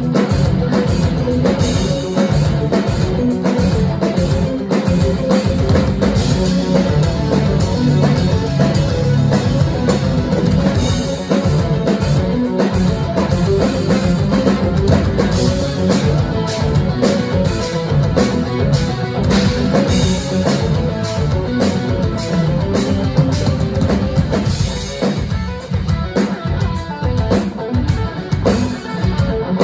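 Live instrumental progressive rock band playing loud: electric guitars, bass and a full drum kit. The drums thin out in the last few seconds.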